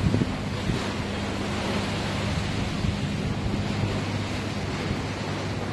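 Sea surf washing against the concrete tetrapods of a breakwater, with wind rumbling on the microphone and a steady low hum beneath.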